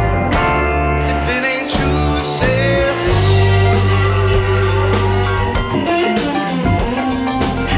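Live rock band playing: electric guitars with bending lead notes over bass, keys and a steady drum-kit beat, with some singing.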